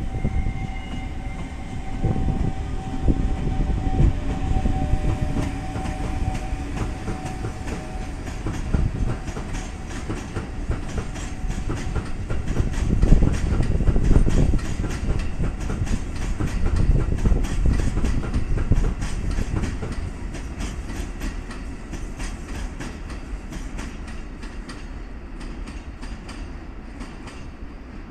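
A long train passing over rail joints: a rapid, continuous clickety-clack of wheels, loudest about halfway through and fading toward the end.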